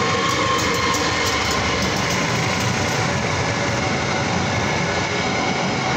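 Diesel locomotive and passenger coaches rolling across a level crossing, with a steady rumble of wheels on the rails.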